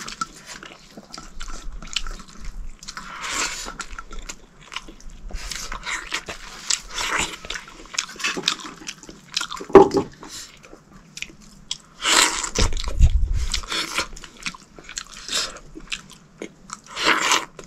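Close-up chewing and crunching of food in irregular bursts, with one sharp knock about ten seconds in and a brief low rumble a little past twelve seconds.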